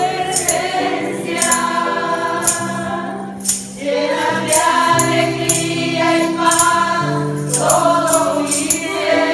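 Live church worship music: voices singing a praise song over sustained keyboard and bass notes, with a tambourine struck on the beat.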